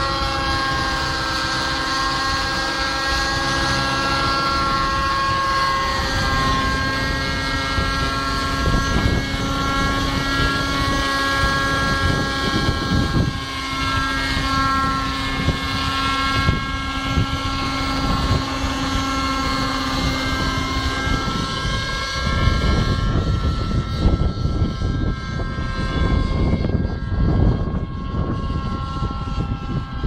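Nitro-powered Thunder Tiger Raptor 50 Titan RC helicopter in flight: its glow engine and rotors make a steady whine whose pitch drifts slowly up and down. Strong wind buffets the microphone with a low rumble, heavier in the last third.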